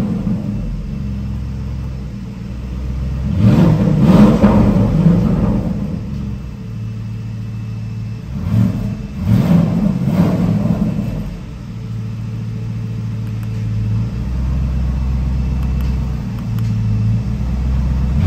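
Porsche Cayenne GTS twin-turbo V8 idling with a low, steady rumble, revved up once and then twice more in quick succession midway, each rev rising and falling back to idle.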